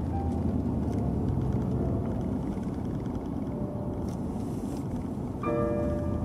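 Steady low rumble of a moving vehicle, with faint background music playing over it. The music notes come up louder near the end.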